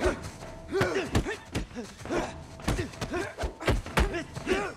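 Hand-to-hand fight: a quick series of about ten punch and body-blow thuds, each followed by short grunts of effort from the fighters.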